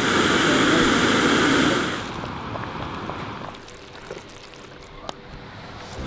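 Portable canister camp stove burner running under a pot with a steady hiss for about two seconds, then dropping away to a fainter hiss with a few small clicks.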